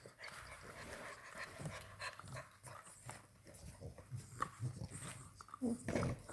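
English bulldog puppies panting while chewing on hard chew bones, with irregular clicks and scrapes of teeth on the bone; louder breaths and chewing about five seconds in.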